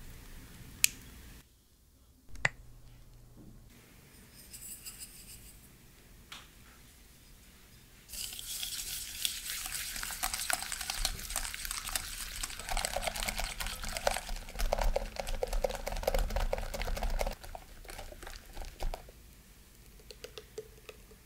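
Wire balloon whisk beating egg yolks and sugar in a glass bowl: rapid, continuous scraping and light clinking of the wires against the glass. It starts about eight seconds in and stops around seventeen seconds, after a few sharp clicks and a quiet stretch.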